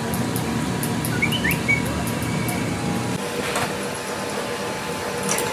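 A horizontal cylinder-honing machine runs with a steady hum that drops away about three seconds in. A bird chirps briefly about a second in, and metal parts clink a couple of times as cast brake cylinder bodies are handled.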